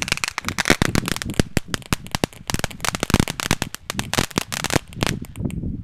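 Ground fountain firework spraying sparks with a rapid run of sharp crackling pops, which thins out and stops about five seconds in.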